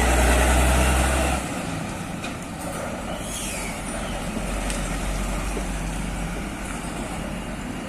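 Heavy diesel truck engine running loud, then dropping sharply to a lower, steady running sound about a second and a half in.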